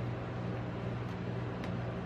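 A metal spatula working rolled ice cream on a frozen steel cold plate, with a couple of light clicks, over a steady low hum.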